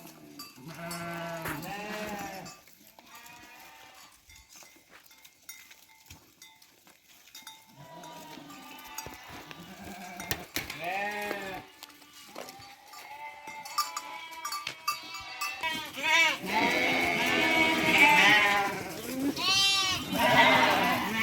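A flock of sheep bleating, many overlapping calls; scattered at first, then a dense, louder chorus of bleats near the end.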